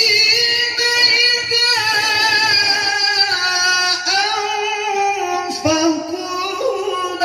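A man reciting the Qur'an in melodic tilawah style into a handheld microphone, holding one long ornamented phrase with small wavers in pitch.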